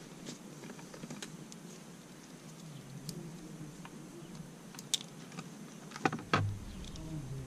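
Scattered light clicks and taps of handling, with a louder knock and low thump about six seconds in.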